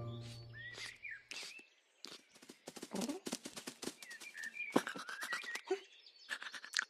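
Short, high chirping calls scattered among many sharp clicks and taps, as music fades out at the start.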